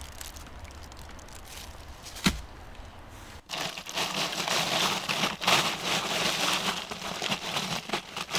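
Dry crinkling and crackling of something being handled or crumpled, with a sharp click a little past two seconds in. About three and a half seconds in it turns into a denser, louder crackling rustle.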